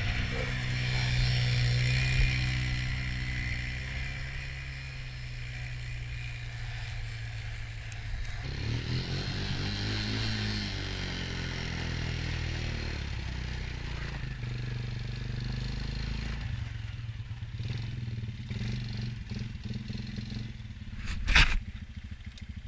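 Honda TRX90 quad's small single-cylinder four-stroke engine running, its revs rising and falling, with a hiss of snow and wind over it. A sharp knock comes near the end.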